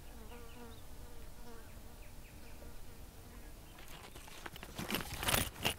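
An insect buzzes faintly with a wavering pitch. From about four seconds in there are rustles and soft knocks of movement and handling, loudest near the end.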